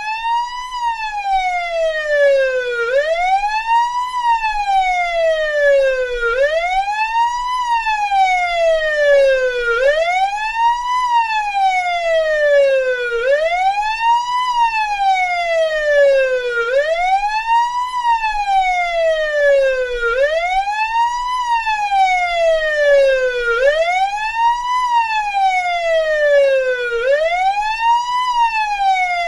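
Russian police siren in wail mode: the pitch climbs quickly and then falls back slowly, over and over, about every three and a half seconds.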